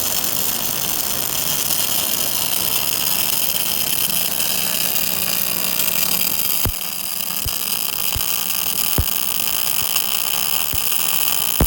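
MIG/MAG welding at a 500 A welding machine: a steady, dense hiss and crackle with a low hum. About two-thirds in the hum drops out and a few sharp clicks follow.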